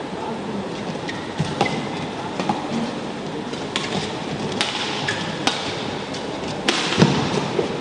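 Badminton rally: sharp cracks of rackets striking the shuttlecock, about one a second, the loudest near the end, with short squeaks of shoes on the court floor over a steady arena background.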